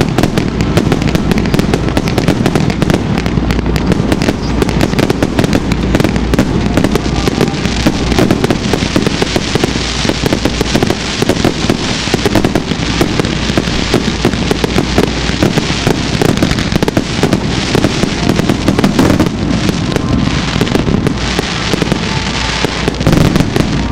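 Fireworks fired in rapid volleys: a continuous barrage of launches, bursts and crackle that never pauses.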